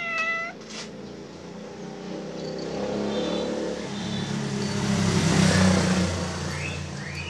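A motor vehicle passes, its engine sound building to a peak about five to six seconds in and then fading. A cat meows once right at the start.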